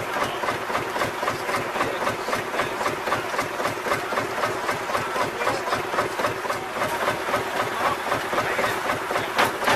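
Vintage tractor engine idling with a steady, even beat.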